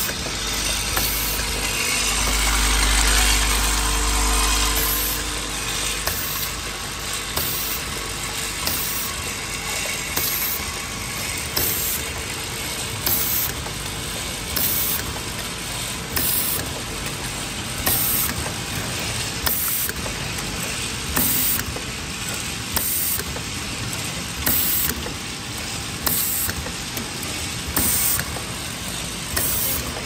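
Automatic bottle filling and capping machine running: a steady mechanical clatter, with a short sharp sound repeating about every one and a half to two seconds. A low rumble is louder in the first few seconds.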